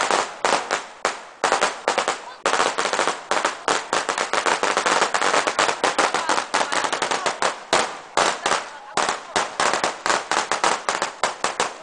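A string of firecrackers going off: quick separate bangs at first, packing into a dense, continuous crackle after about two and a half seconds, then loosening back into rapid separate bangs near the end.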